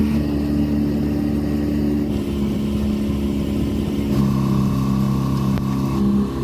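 Sailboat's engine running steadily while motoring, its tone shifting about two seconds in and again about four seconds in.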